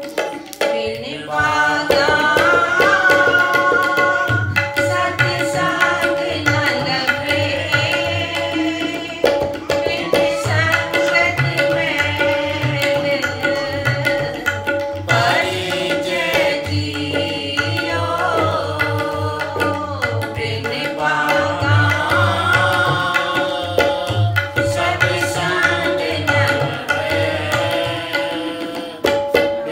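Sikh shabad kirtan: a woman sings a devotional hymn over a harmonium holding a steady note, while tabla plays a continuous rhythm with deep bass-drum strokes underneath.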